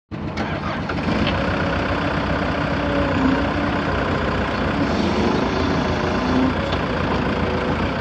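Perkins four-cylinder diesel engine of a Mustang 2109 skid steer idling steadily.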